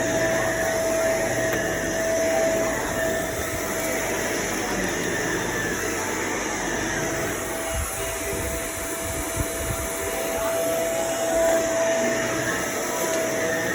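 Bagless vacuum cleaner running steadily with a constant whine, picking up dirt, with a few low bumps about eight seconds in.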